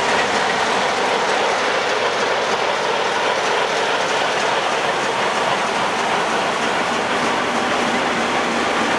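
Class 45 diesel-electric locomotive 45133, with its Sulzer twin-bank 12-cylinder diesel engine, running steadily as it rolls slowly past along a platform, a dense, unbroken mechanical sound.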